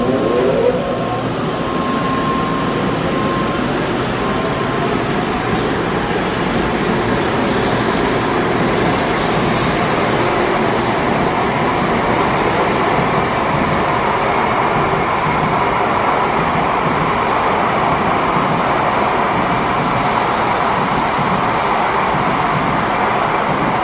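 Tōkaidō Shinkansen N700S train running past on the tracks: a steady, loud rush of wheels and running gear, with a high steady tone over it for the first few seconds.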